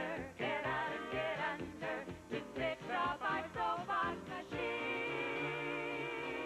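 A song with singing voices and accompaniment, the voices wavering with vibrato in short phrases, ending about four and a half seconds in on a long held chord.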